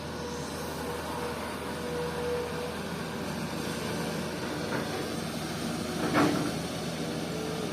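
Komatsu PC200 hydraulic excavator running steadily, with a brief louder sound about six seconds in.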